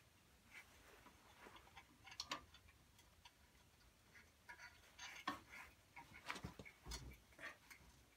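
Faint, irregular clicks and taps of a hand tool working a fastener on the underside of a Štore 404 tractor, with a duller knock about seven seconds in.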